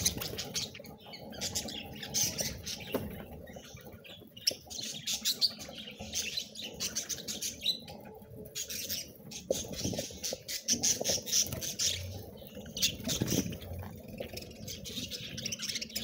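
A flock of budgerigars chattering, many birds chirping and squawking at once, coming in waves with brief lulls.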